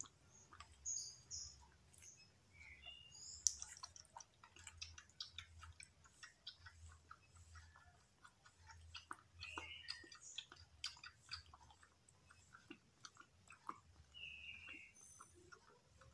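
Kitten suckling from a milk feeding bottle's teat: faint, irregular wet clicking and smacking sounds.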